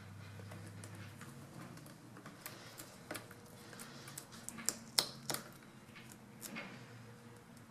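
Scattered light clicks and taps of plastic parts and wires being handled on a laptop's screen assembly, as the camera, microphone and Wi-Fi antenna wires are pulled out of their routing. The loudest click comes about five seconds in.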